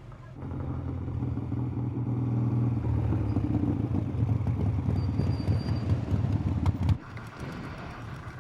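Small motorcycle engine running and pulling away, growing louder over several seconds, then cut off abruptly about seven seconds in.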